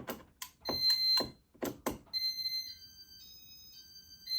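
Buttons on a ceiling-fan wall control clicking several times, then a high electronic beeping tone that steps between a few pitches for about two seconds while a control mode is set.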